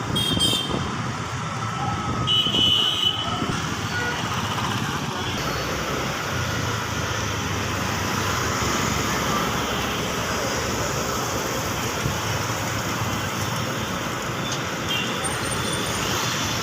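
Steady city road traffic noise heard while riding along in traffic, with short vehicle horn toots just after the start and again about two and a half seconds in.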